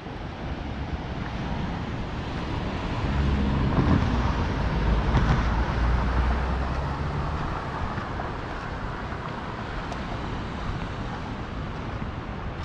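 A motor vehicle going by: a low engine hum swells about three seconds in and fades again a few seconds later, over a steady rush of wind and road noise.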